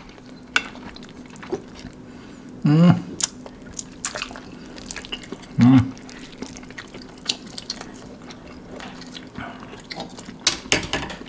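Close-up wet mouth sounds of people slurping and chewing cheesy instant noodles, with many small clicks and ticks of chopsticks and sticky food. Two short vocal sounds break in, about three and six seconds in.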